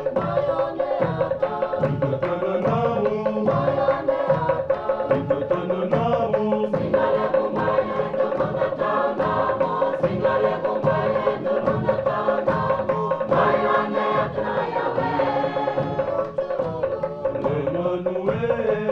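Background music: group singing in a chant-like style over a steady, evenly repeating beat, with a held note running underneath.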